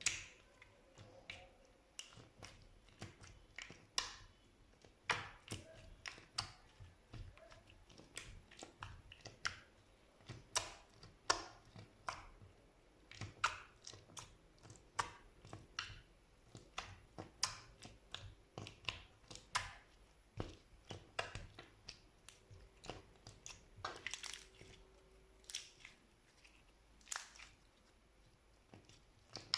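Slime being squeezed and pressed by hand, giving an irregular run of sharp pops and clicks, about two a second, some much louder than others.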